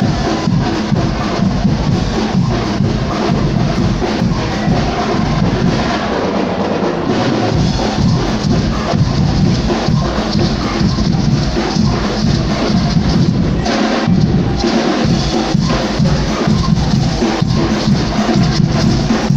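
Band music driven by drums, with bass drum and snare keeping a steady beat, typical of a marching band in a carnival parade.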